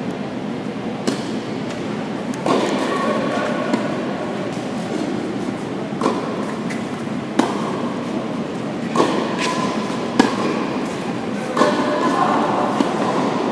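Tennis rackets striking the ball in a doubles rally, opened by a serve: about seven sharp pops, one every one to one and a half seconds, over the steady background noise of a large indoor tennis hall.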